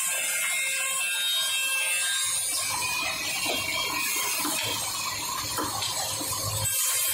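Double-end CNC tenoning machine running, its spinning cutter heads giving a steady high whine as they machine tenons on the ends of wooden strips.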